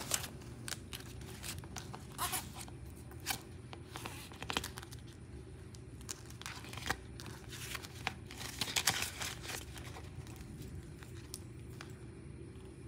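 Clear plastic zip-top pouch in a ring binder being pulled open and handled, with paper banknotes slid inside: scattered soft crinkles and rustles, with a denser run of rustling about eight to nine seconds in.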